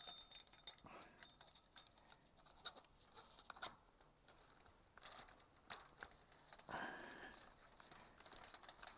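Near silence with faint scattered clicks and short rustles: gloved hands pressing a fork top cap down against the spring in a Suzuki DR650 front fork leg.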